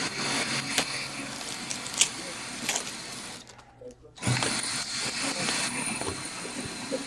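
A power tool from renovation work runs steadily with a high whine, cuts out for about a second around three and a half seconds in, then starts again. A few sharp clicks sit over it in the first half.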